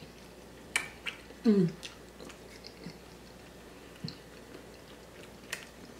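Close-miked eating: a person chewing soft food with wet mouth clicks and lip smacks, and a short falling "mm" of pleasure about one and a half seconds in.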